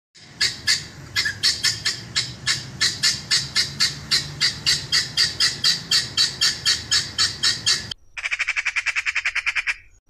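Helmeted guinea fowl calling in a loud, rapid run of repeated calls, about four a second. About eight seconds in, this cuts off suddenly and a faster rattling chatter of a magpie follows for a little under two seconds.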